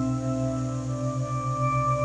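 Singing bowls ringing in long overlapping tones over a low hum that wavers rapidly; a fresh, higher ring swells in about a second in.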